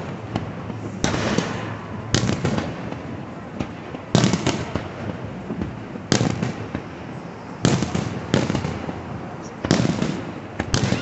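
Fireworks display: aerial shells bursting overhead, about eight sharp booms one to two seconds apart, each trailing off before the next.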